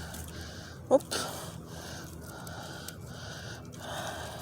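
A person's breathing close to the microphone, with a short rising 'whoop' about a second in and a louder breathy exhale near the end.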